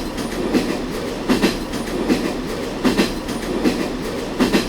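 Durango & Silverton narrow-gauge passenger car's wheels rolling and clacking over rail joints, the clicks coming in quick pairs about every second and a half over a steady rumble.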